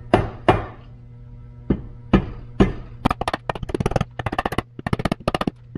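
Rubber mallet tapping the aluminium half of a Subaru EJ25 boxer engine block to seat it onto the other half over the crankshaft. There are five separate knocks, then, from about three seconds in, a quick run of lighter taps at about five a second.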